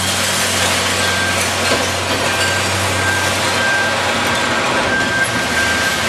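Recycling collection truck's diesel engine running steadily with a low hum while its raised body dumps a load of mixed recyclables, which spill out with a constant rushing clatter.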